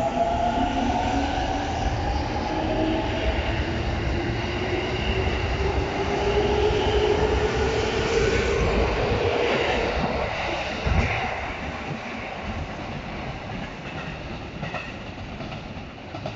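A 205 series 5000-subseries electric train pulling out and accelerating. Its VVVF inverter and traction motors whine in several slowly rising tones over the rumble of wheels clacking on the rail joints. The whine and rumble fade as the last cars pass and the train draws away, with a single knock about eleven seconds in.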